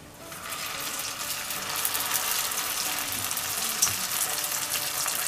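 A daikon spring roll lowered into hot oil in a wok, the oil sizzling up about a quarter-second in and crackling louder and steadily, with one sharp pop partway through.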